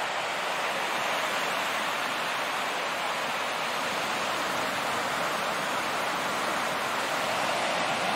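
Ocean surf breaking on a beach: a steady, even rushing wash of waves.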